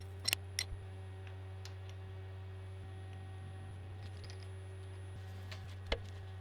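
Steady low machine hum in a workshop, with a few light clicks and taps, several in the first two seconds and one near the end.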